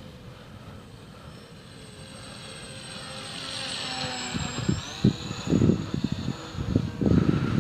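Electric motor whine of a ParkZone Mosquito RC plane's twin propellers, growing louder as the plane flies past, with the pitch shifting about halfway through. Over the second half, gusts of wind buffet the microphone in loud, irregular low rumbles.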